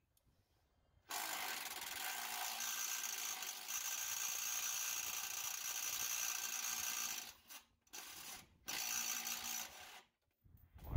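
Small power tool motor running with the trigger held, backing out a bolt. It runs steadily for about six seconds, stops, gives a short burst, then runs again for about a second.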